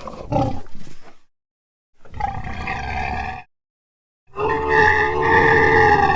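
Redking kaiju roar sound effects: three separate cries with silence between them. A short one comes first, then one about a second and a half long, then a longer held roar starting a little after four seconds in.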